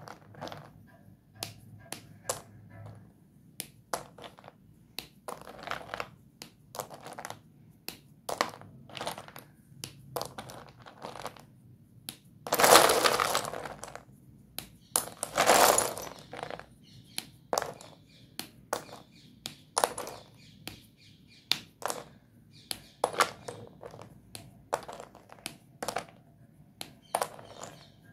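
Doms white dustless chalk sticks being snapped and crushed by hand: a string of short, sharp snaps and crunches, with two longer, louder crunches about halfway through.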